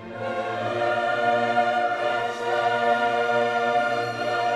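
Orchestral and choral music in long held chords, with no fireworks bangs standing out.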